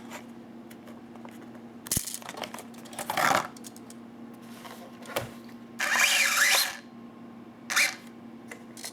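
A small electric motor whirring in several short bursts, the longest lasting well over half a second, with a sharp click between them, over a steady low hum.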